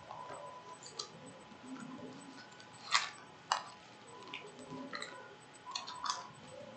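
Scattered light clicks and taps, with two sharper clicks about half a second apart near the middle, and a faint steady tone under them.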